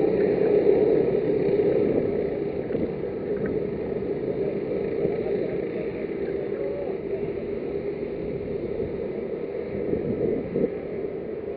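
Racing kart engines running steadily out on the circuit, their drone slowly fading.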